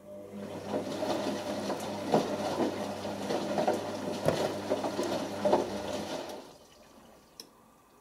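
Beko WM6103 washing machine's drum turning in its final rinse: a low motor hum with water sloshing and splashing inside the drum, stopping after about six and a half seconds.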